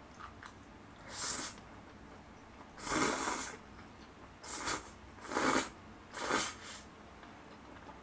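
A person slurping spicy jjolmyeon noodles from a bowl: five separate slurps, the one about three seconds in the longest.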